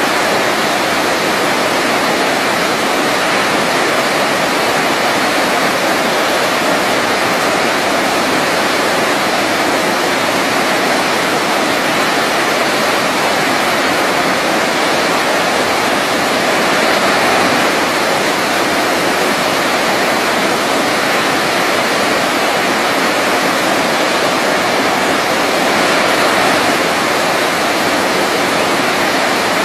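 Waterfall rushing steadily, a constant full hiss of falling water.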